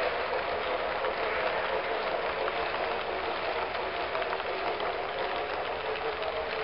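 HO scale model freight cars and caboose rolling past on the track: a steady rattle of small wheels with fine rapid clicking, easing off slightly near the end as the train goes by.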